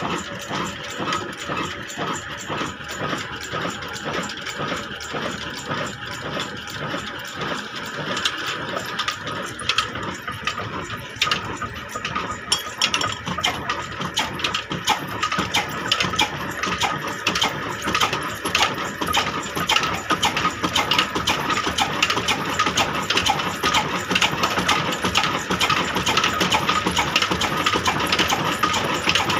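Old horizontal single-cylinder stationary diesel engine with a heavy flywheel running, an even rhythm of firing knocks with metallic clatter. It gets louder and sharper about halfway through.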